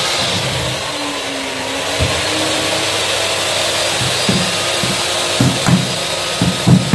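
Electric hand router running steadily without cutting, after being lifted off the board. From about four seconds in, a handful of short sharp hammer taps on a wooden strip, the last two loudest.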